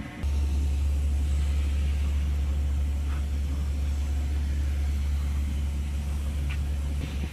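Steady low rumble of a ship's diesel engine running, level throughout, with a couple of faint ticks.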